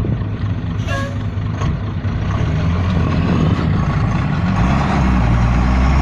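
Heavy dump truck's diesel engine running with a steady low drone, a short sharp noise about a second in, and the engine note rising from about four and a half seconds in.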